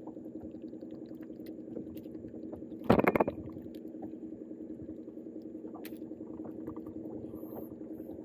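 Steady engine drone from a boat motor, a low hum of several even tones that holds constant. About three seconds in comes one short, loud rattle.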